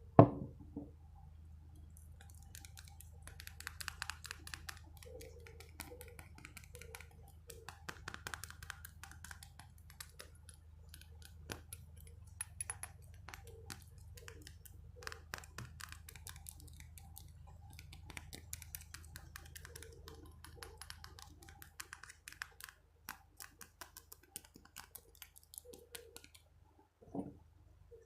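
Close-up ASMR tapping and clicking on a small object: many quick, irregular light clicks and taps, with a loud single knock right at the start and a faint steady low hum underneath.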